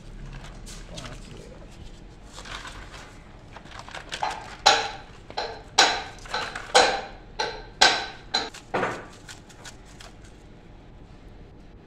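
Stiff enamelled copper winding wire being pulled off a burnt transformer coil by hand: quiet rustling, then a run of sharp metallic clicks and clanks with a faint ring, about two a second for some four seconds in the middle.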